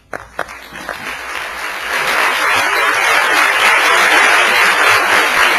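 Audience applauding: a few separate claps at first, swelling into full, steady applause within about two seconds.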